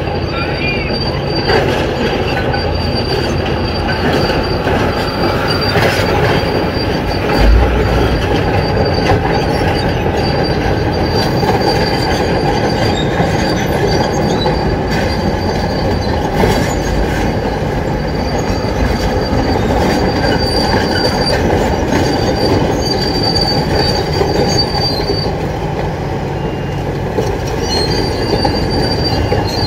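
Heavy tracked excavators running and travelling, their steel tracks squealing and clanking, with a thin high squeal that comes and goes. A single low thud comes about seven and a half seconds in.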